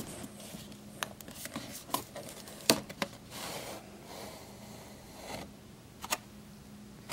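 Cardboard product packaging being opened by hand: a printed outer sleeve slid off a box, with scattered taps and clicks and brief soft scraping of cardboard on cardboard.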